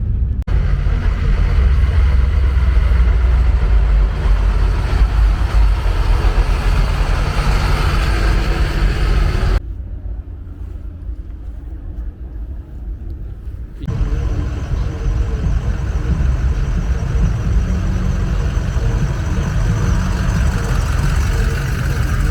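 Vehicle engines and exhausts rumbling as trucks and cars cruise by, with a heavy low rumble. The sound changes abruptly about half a second in, near ten seconds and near fourteen seconds, where clips are cut together; the stretch between the last two cuts is quieter.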